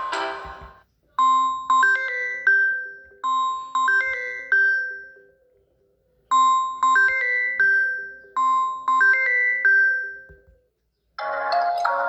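Samsung Galaxy A03s ringtone: a short melody of chiming notes that each ring out and fade, played twice with a short pause between. The previous ringtone stops just under a second in, and a different ringtone starts near the end.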